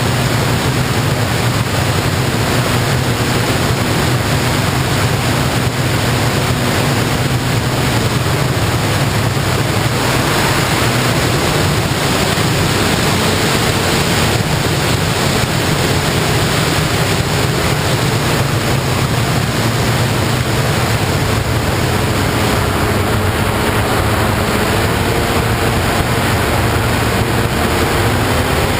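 Steady rush of wind over the microphone from the ZII FPV model plane in flight, with its motor and propeller heard as a faint hum that changes pitch now and then as the throttle moves.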